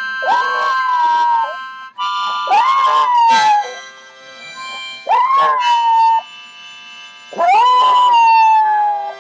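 Miniature pinscher howling four times, each howl rising, then sliding slowly down, over a harmonica holding steady blues notes.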